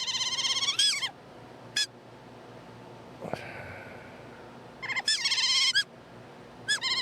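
Recorded otter calls: bursts of high-pitched, squeaky chirps, each a quick string of rising-and-falling notes lasting about a second, repeating at the start, briefly around two seconds in, and twice more later. A single sharp click about three seconds in.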